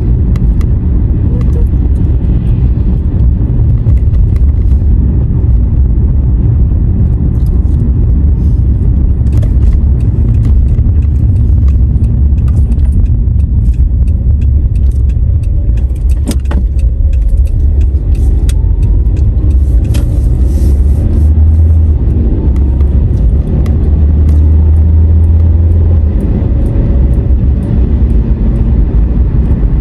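Car interior noise while driving: a steady low rumble of road and engine, growing a little louder for a few seconds past the middle, with scattered small clicks and rattles in the cabin.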